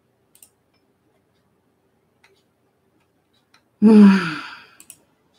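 A woman's voiced sigh about four seconds in, falling in pitch and fading over about a second. Before it, only a few faint clicks.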